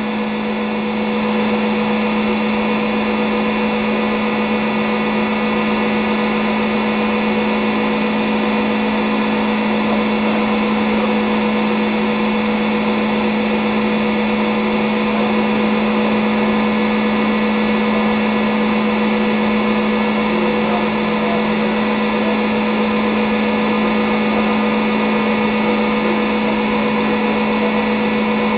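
GMC Holding Corp electromagnetic engine running at a steady speed, belt-driving a large wheel: a steady hum with higher tones above it, its pitch unchanging.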